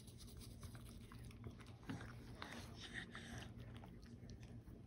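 Faint mouth sounds and soft clicks from a schnauzer having its teeth brushed with a dog toothbrush, over a low steady room hum.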